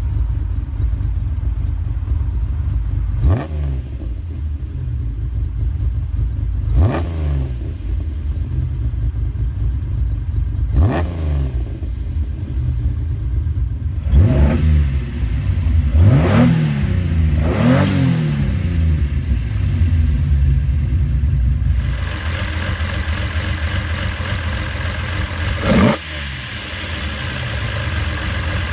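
1973 Nissan Skyline's inline-six on three twin-choke side-draft carburetors, idling and blipped seven times, each rev rising and falling back to idle, three of them in quick succession midway. Heard first at the dual exhaust tips, then over the engine bay, where a loud carburetor intake hiss joins the idle before a final blip.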